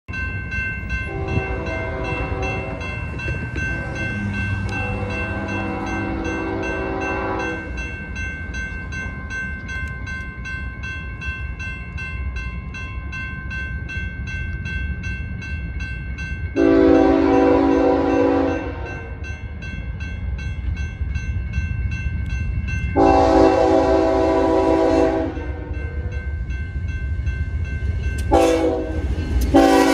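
Approaching BNSF freight train led by GE ES44C4 diesel locomotives, its multi-note air horn sounding a series of blasts. There are two long blasts back to back at the start, single blasts about 17 and 23 seconds in, and a short blast followed by another as the locomotives come into view. A low diesel rumble builds underneath as the train nears.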